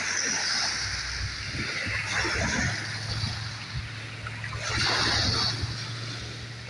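Small waves lapping and washing up a gravel beach, the water hissing over the pebbles in swells, the loudest wash coming about five seconds in.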